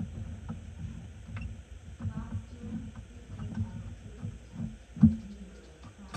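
Irregular knocks and clunks of parts being handled and fitted together, with one sharp, louder knock about five seconds in.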